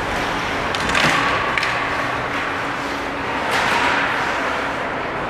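Ice hockey play: skate blades scraping the ice in several sudden scrapes about a second in and again near four seconds, with sticks and puck knocking and a few thuds against the boards and glass.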